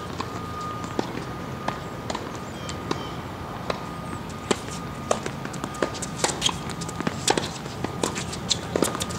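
Footsteps and scattered sharp taps on a hard tennis court, coming more thickly in the second half. A faint thin high tone comes and goes under them.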